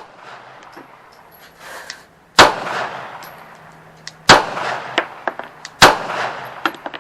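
Three shots from a Glock 17 MOS 9mm pistol, spaced about two seconds and then a second and a half apart, each a sharp crack with a trailing echo.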